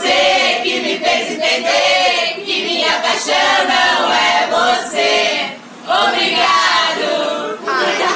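A group of women's and men's voices singing a chant together, loud, in phrases, with a brief break about five and a half seconds in.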